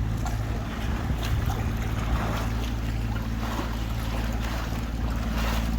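Tour boat's engine running steadily with a low hum, with water splashing and rushing along the hull and wind on the microphone.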